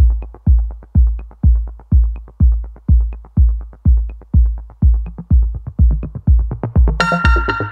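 Electronic background music: a steady kick-drum beat about twice a second with light ticks between, joined near the end by a bright synth chord.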